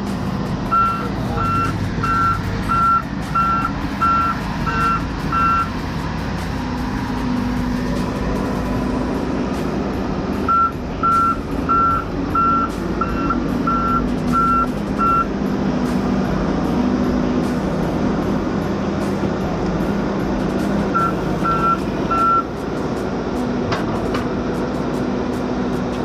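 Heavy-equipment backup alarm beeping in three runs of evenly spaced beeps, about two a second, over the steady hum of a diesel engine running.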